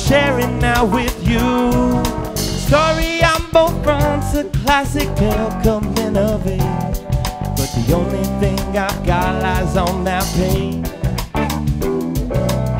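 Live band playing a song: electric guitar, bass guitar, drum kit and a Nord Electro 5 keyboard, with a man singing the lead vocal into a microphone.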